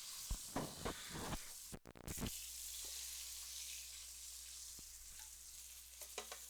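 Food frying in a pan, a steady sizzle, with a few short knocks and scrapes of a utensil in the first two seconds.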